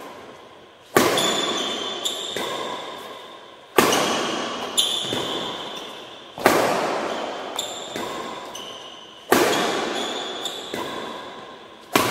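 Badminton racket hitting a shuttlecock, a sharp crack about every three seconds, each ringing on in the echo of a large metal-walled hall, with a fainter knock between hits.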